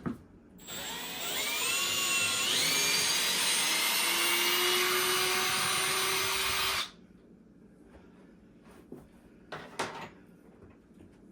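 Drill motor backing a cabinet mounting screw out of the wall: it runs for about six seconds, its pitch climbing in steps as it speeds up and then holding steady, and it stops abruptly. A couple of short knocks follow near the end.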